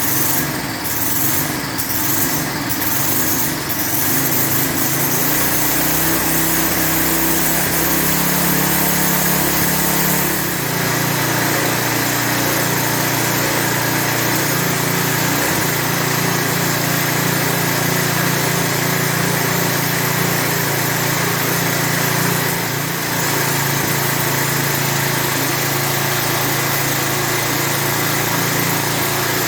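3.5 HP Tecumseh single-cylinder engine on a lawn edger running continuously. It is a little uneven in the first few seconds and shifts to a different, steady speed about ten seconds in. It is running better than expected, smoothed out with its air filter properly installed.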